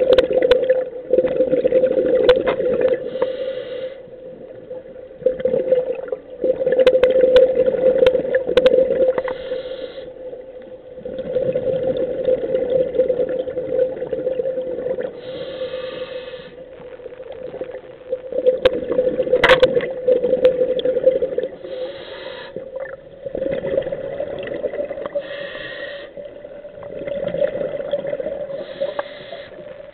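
Scuba diver breathing through a regulator underwater: a short hiss on each inhale and a gurgling rush of exhaled bubbles, about six breaths, over a steady hum.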